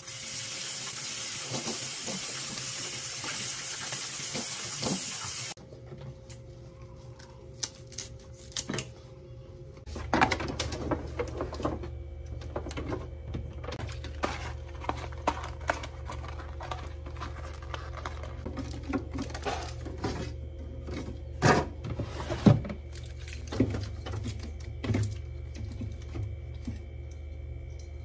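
Kitchen tap running into a stainless steel sink during vegetable rinsing, shutting off about five seconds in. It is followed by scattered clicks and knocks as vegetables and plastic crisper drawers are handled in an open refrigerator, over a low steady hum.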